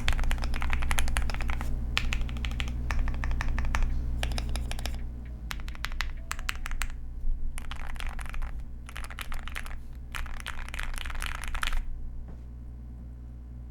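Typing on a QK100 mechanical keyboard with Gateron Oil King linear switches and Durock V2 stabilizers: rapid keystrokes in bursts with brief pauses, stopping near the end. A steady low hum runs underneath.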